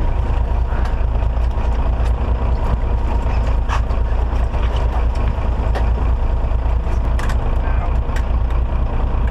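A fishing boat's engine running steadily at trolling speed, a constant low rumble mixed with wind noise, with a few light clicks scattered through.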